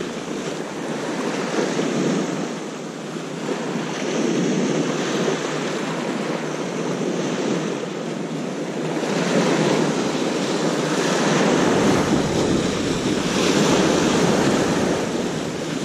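Sea surf washing in and breaking on a rocky shore, rising and falling in swells every few seconds, with wind buffeting the microphone.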